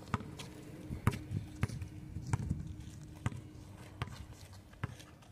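Basketball dribbled on an outdoor concrete court: sharp single bounces, unevenly spaced, about one every half second to second.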